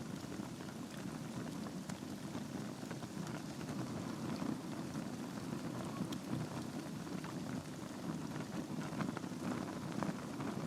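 Logs burning in a fireplace: a steady low rush of flames with frequent small crackles and pops scattered throughout.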